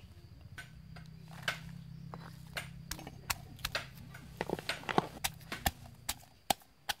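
Hard knocks of a stone pestle in a stone mortar as garlic cloves and chillies are added, turning into quick regular pounding strokes about five seconds in. A low steady hum runs underneath for most of it.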